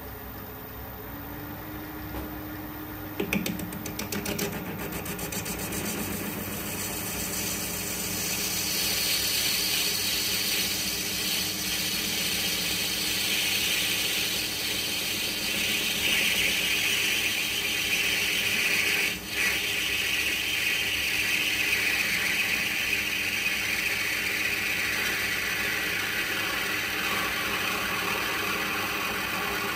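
Metal lathe turning a cast brake cylinder while the tool faces its end: the steady hum of the running lathe, then a cutting hiss that starts a few seconds in and grows louder. The cut breaks off for a moment a little past halfway.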